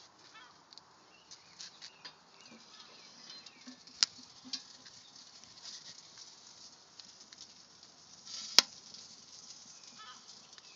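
Charcoal briquettes and a wood chunk burning in a smoker's steel firebox, crackling with many faint ticks and pops. There are two louder sharp snaps, about four seconds and about eight and a half seconds in, the second the louder.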